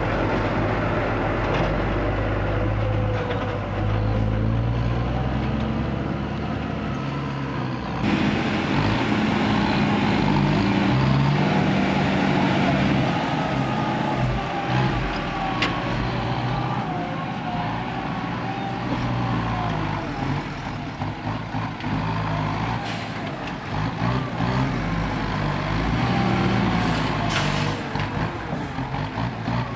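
Diesel engine of a ten-wheel dump truck running as the truck drives past. About eight seconds in the sound changes abruptly to a second ten-wheel tipper truck's engine running steadily while its raised bed tips out a load of soil.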